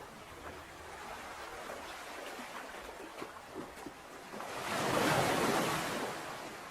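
Ocean waves: water lapping and fizzing with small splashes, then one wave surges in about four seconds in, swelling to the loudest point and washing back out near the end.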